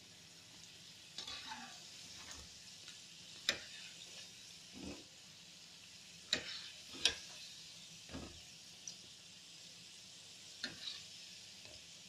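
Spring rolls deep-frying in hot ghee in a small kadhai: a faint, steady sizzle as they fry toward golden brown on both sides over medium heat. A metal slotted skimmer clicks against the pan several times as the rolls are turned.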